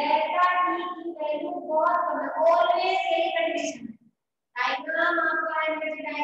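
A woman's voice speaking in a sing-song way, with a short pause about four seconds in.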